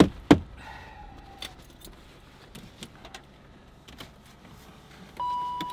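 Keys jangling and small clicks inside a Range Rover L322 as the driver handles the key, with two sharp knocks at the start. About five seconds in, a steady electronic beep from the dashboard comes on as the ignition is switched on, just before the engine is cranked.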